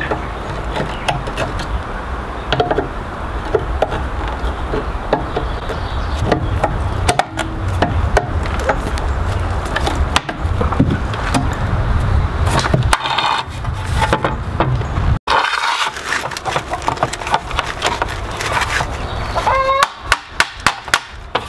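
End-cutting pincers gripping and prying at an aluminium door frame's top plate, giving repeated metallic clicks, scrapes and creaks. Near the end a short rising squeak is followed by a quick run of sharp clicks.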